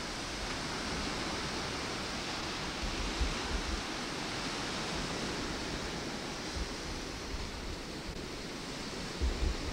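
Steady outdoor rushing noise, with low gusts of wind buffeting the microphone about three seconds in and again near the end.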